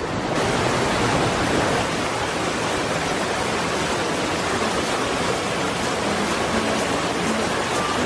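Steady rushing of a strong rapid and waterfall pouring over boulders.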